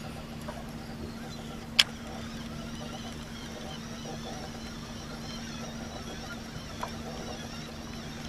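Steady low hum of a boat's motor, with one sharp click about two seconds in and a fainter one near the end.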